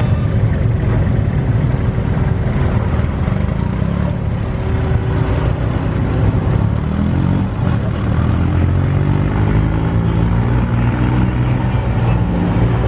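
V8 drag cars, a Dodge Demon's supercharged Hemi and a twin-turbo Mustang GT's Coyote V8, idling at the start line as they creep into stage. The engine note rises and falls a little in the middle.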